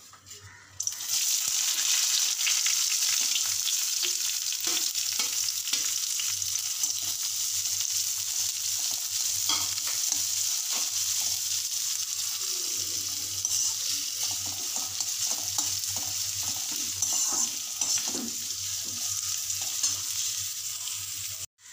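Sliced onions and mint leaves sizzling in hot ghee and sesame oil in a metal kadai. The sizzle starts suddenly about a second in, as they hit the pan, and holds steady, with the scrapes and light taps of a perforated metal ladle stirring them.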